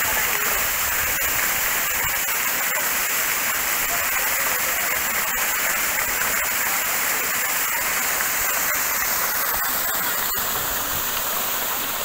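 Waterfall: a steady rush of falling and splashing water.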